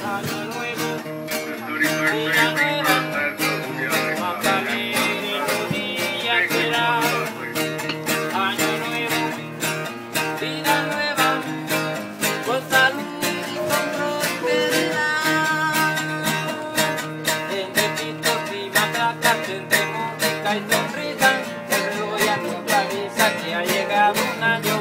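Acoustic guitar strummed in a steady rhythm with repeating bass notes, and a man singing over it at times.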